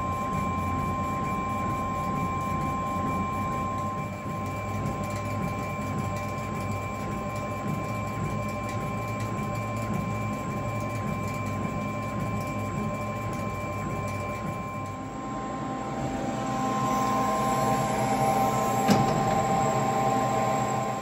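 CO2 laser engraver running while it engraves wood: a steady machine hum with high, even whining tones from its motors and fans. The sound shifts about fifteen seconds in, and there is a single sharp click near the end.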